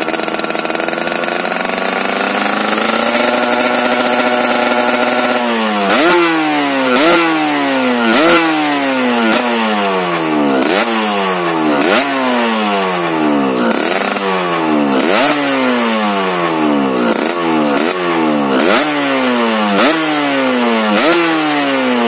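Yamaha RX-King's single-cylinder two-stroke engine through an aftermarket racing exhaust, revved up and held high for a few seconds, then blipped over and over, about once a second, each blip jumping up sharply and falling back.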